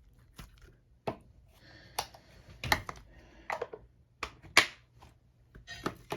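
Sticky glue-and-borax slime being squeezed and pulled in the hands, giving irregular wet clicks, smacks and pops.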